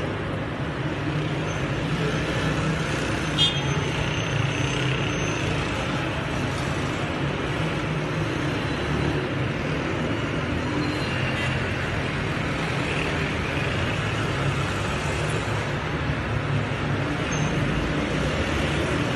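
Steady street traffic noise, with a sharp knock about three seconds in.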